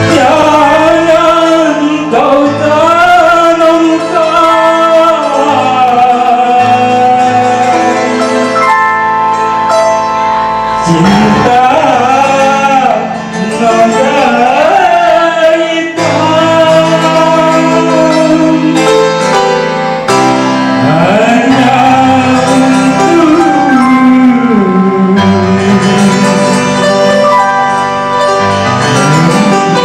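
Live amplified stage music: a man singing an ornamented, gliding melody into a handheld microphone over keyboard-led band accompaniment, played loud through the PA loudspeakers.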